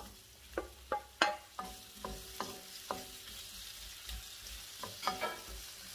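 Chopped tomatoes tipped into a stone-coated wok of sautéing onions and stirred with a wooden spoon: a run of sharp clacks and knocks against the pan, some with a short ring, over a faint sizzle of frying.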